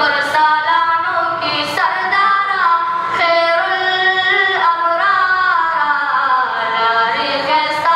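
A high young male voice singing a Pashto naat unaccompanied into a microphone, in long held notes that bend and slide.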